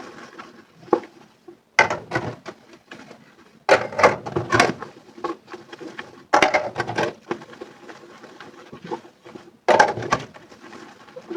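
Dishes knocking and clinking in a sink during hand washing, in four bursts of quick clicks and knocks that each start suddenly and die away.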